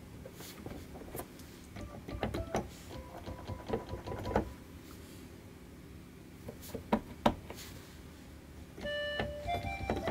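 Scattered sharp clicks and taps, some with short thin tones. Near the end, a few held notes from an electronic keyboard sound as music begins.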